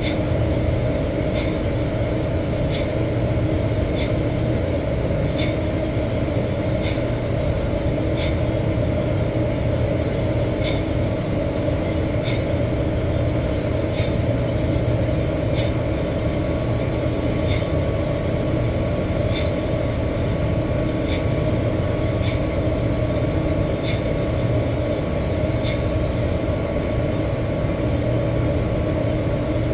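Steady mechanical roar of a paint spray booth and spray rig while a spray gun is in use, with a sharp, regular tick about every three-quarters of a second.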